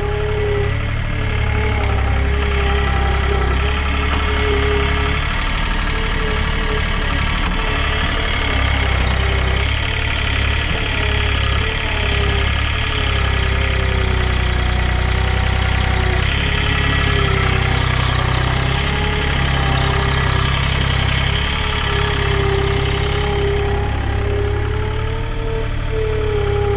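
An engine running steadily, with a deep hum and a wavering whine over it.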